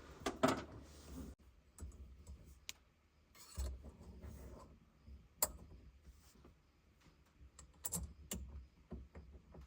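Scattered light clicks and short rustles of small steering wheel hub parts being handled and fitted by hand, with a few sharper clicks about five and eight seconds in.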